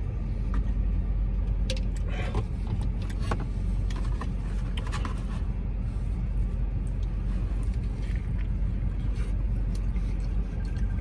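Steady low hum of a parked car idling with its air conditioning running. Short scattered smacks, clicks and rustles from drinking from a shaker bottle and eating a burrito close by sit on top of it.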